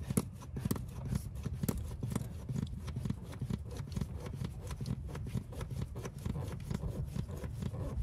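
1976 Mercedes 240D's four-cylinder diesel engine being cranked on the starter without firing, a fast run of clicks over a low pulsing churn, while air is bled from the injection lines left loose at the injectors.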